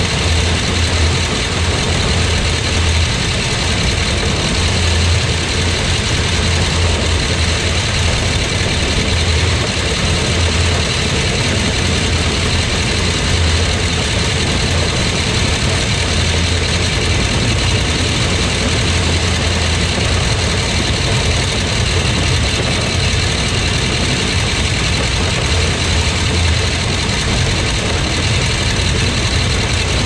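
Tractor engine and a PTO-driven Allis-Chalmers All-Crop 60 pull-type combine running together while harvesting soybeans: one steady, unbroken machine sound with a strong low hum.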